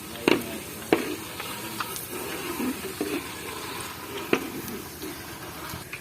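Food frying with a steady sizzle, broken by a few sharp knocks of a utensil: one just after the start, another about a second in, and a third after four seconds.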